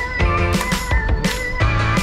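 Background music with a steady beat: sustained melodic notes over regular drum hits about twice a second.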